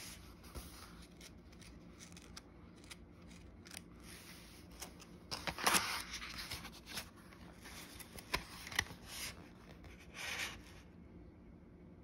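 Pages of a paperback book being handled and turned: soft paper rustles and small clicks, with a louder rustle about halfway through and another shortly before the end.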